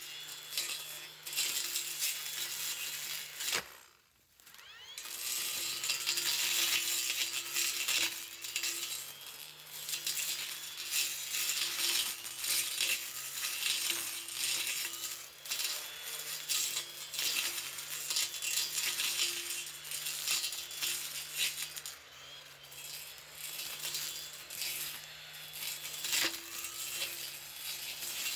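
Makita 40V battery brush cutter (MUR010) running with a Tsumura 305 mm two-edged blade, cutting dense susuki-grass undergrowth. Its steady electric motor hum sits under a crackling, rattling clatter of grass stems striking the blade. It stops briefly about four seconds in, then runs on.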